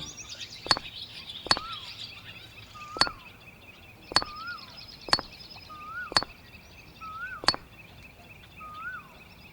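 A bird calling over and over, roughly once a second: short whistled notes that rise and then drop, mixed with sharp clicks, over a faint steady high hum.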